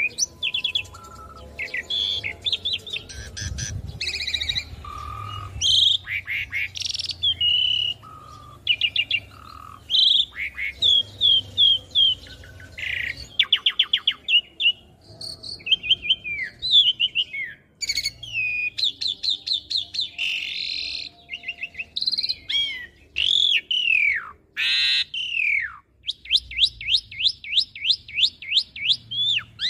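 Asian pied starling singing a long, varied song: clear whistles, falling slurred notes and fast runs of repeated clicking notes at about five a second, with a run in the middle and another near the end.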